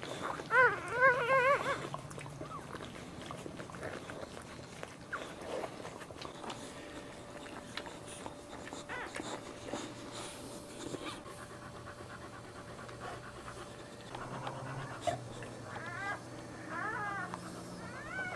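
Newborn Boxer puppy squealing in a short run of wavering, high-pitched cries about half a second in, and again a few times near the end. Between them the Boxer mother is heard panting softly.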